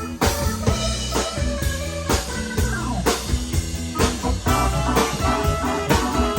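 Rock-style band music with guitar and a drum kit playing a steady beat, with a note bending downward near the middle.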